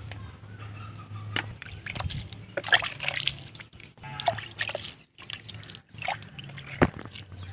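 Potting soil pouring from a plastic packet into a small metal pot, in several short spills of rustling, trickling soil with a few sharp knocks.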